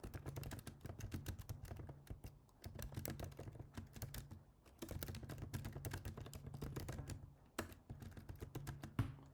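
Typing on a computer keyboard: quick runs of keystrokes broken by short pauses, with a single louder click near the end.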